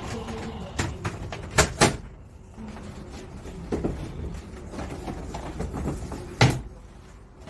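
Knocks and clatter of a foldable metal-framed cardboard display stand being handled and set up. A few sharp knocks come in the first two seconds, two of them close together, and the loudest knock comes near the end.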